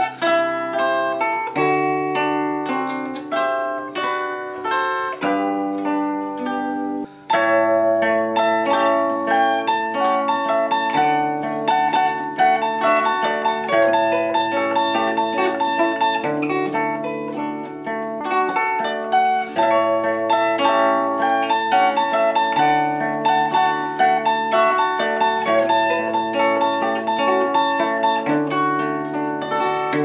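Concert zither played solo: a plucked melody on the fretted strings over bass notes on the open accompaniment strings. There is a brief break about seven seconds in before the playing resumes.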